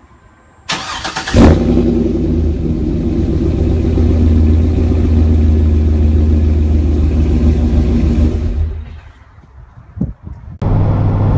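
A car engine starts, catching loudly about a second in, then runs at a steady speed before fading out near nine seconds. Another engine is running steadily shortly before the end.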